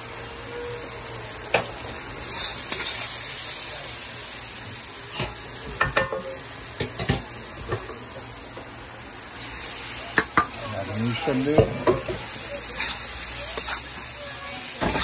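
Shrimp sizzling in hot oil and sauce in a pan while being stirred. A utensil knocks and scrapes against the pan about a dozen times at irregular moments.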